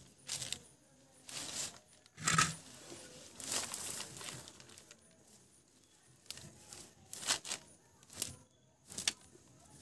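Fresh leaves crinkling and rustling as hands press them down inside a clay pot, in a series of short bursts.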